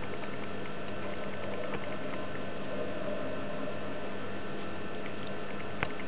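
Great spotted woodpecker pecking at a suet block in a wire cage feeder: faint light taps scattered through, with one sharper knock near the end, over a steady hum.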